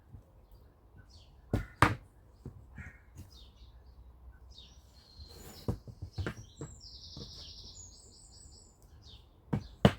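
Small birds chirping and trilling, with a few sharp knocks: two pairs of loud clacks, about a second and a half in and again near the end.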